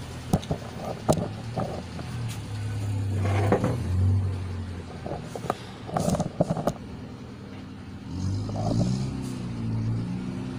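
Handling noise as a handheld camera is moved around an opened CRT TV chassis: scattered sharp clicks, knocks and rustling. Under it runs a low steady hum, which takes on a pitched drone about eight seconds in.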